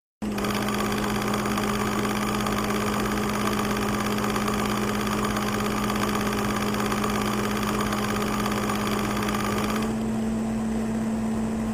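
Steady mechanical hum with a strong low tone and hiss, starting suddenly; the hiss drops away near the end, and a few sharp clicks follow.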